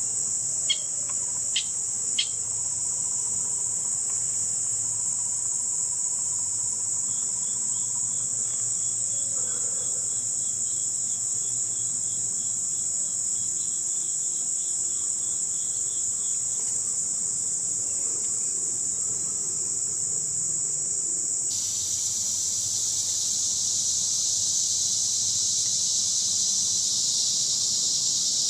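Summer insect chorus of crickets, a steady high-pitched drone with a fainter pulsing trill underneath for several seconds. Three sharp clicks sound in the first couple of seconds, and about 21 seconds in the chorus shifts to a lower, fuller pitch.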